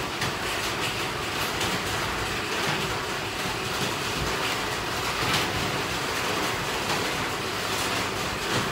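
Steady rain outside, an even hiss with no let-up, with a few faint knocks about a second and a half in and again past the middle.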